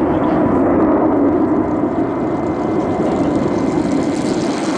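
Steady jet engine noise from a formation of Su-27 fighters flying overhead, easing slightly near the end.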